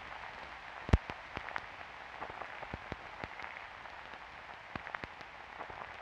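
Soft, steady hiss with irregular crackling clicks scattered through it, and one louder pop about a second in.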